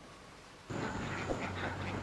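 Near silence, then about two-thirds of a second in a flock of ducks starts up abruptly, with scattered short calls over a steady low hum and a thin, high, steady tone.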